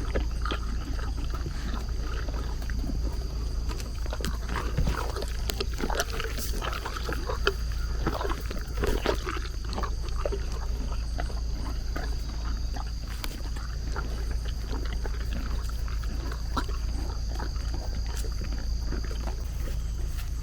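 A dog's snuffling and grunting breath sounds in short irregular bursts, busiest in the middle, over a steady low rumble and a faint steady high tone.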